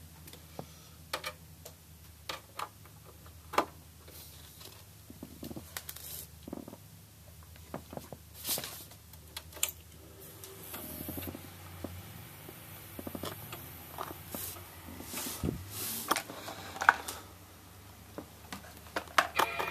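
Scattered clicks and knocks from hands handling the Mac Pro's aluminium tower case, over a steady low hum.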